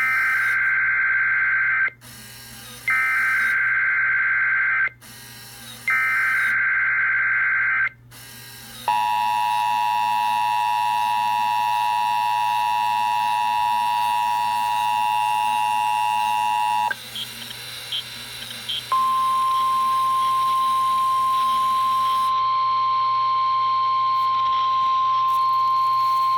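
A Sage EAS ENDEC sends a required weekly test alert. First come three harsh, buzzy bursts of header data, each about two seconds long with a short gap between them. Then comes the steady two-tone EAS attention signal for about eight seconds. After a brief pause with a few small clicks, the single steady NOAA Weather Radio warning alarm tone sounds.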